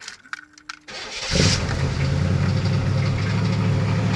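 Chevrolet LT1 350 small-block V8 starting: a few clicks and a brief hum, then the starter cranks and the engine catches about a second in and settles into a steady idle. It runs with a rod knock.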